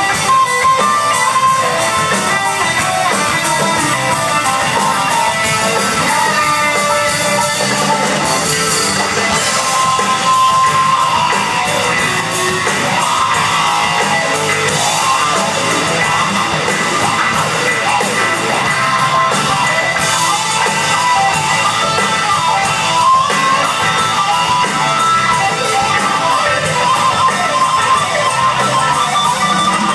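Live rock band playing at full volume: electric guitar out front over a drum kit, heard from the audience, with no break in the music.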